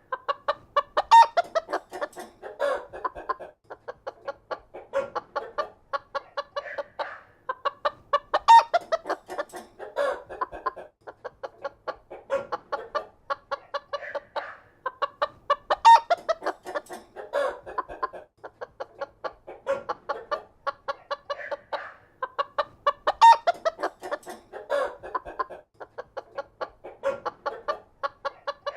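A group of chickens clucking, a dense run of short, pitched calls. The same few seconds of clucking repeat about every seven seconds, as in a looped recording.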